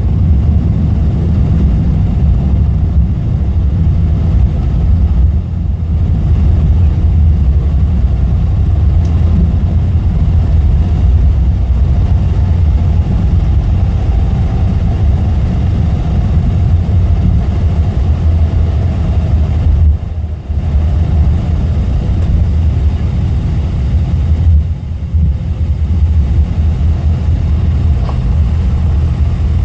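Jet airliner cabin noise on the landing roll: a loud, steady low rumble of engines and wheels. Midway, an engine whine slowly falls in pitch as the engines spool down.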